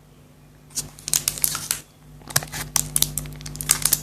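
A chocolate bar's wrapper being torn open and crinkled by hand: a burst of crackling about a second in, then a longer run of crackles from about two seconds in until near the end.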